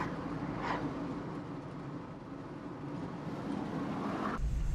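Steady engine and tyre noise inside a moving car's cabin, with brief whooshes of oncoming traffic passing near the start. Near the end the sound changes suddenly to a louder low rumble.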